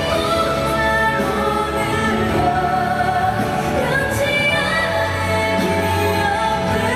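A woman singing a pop song solo over instrumental accompaniment, holding long notes.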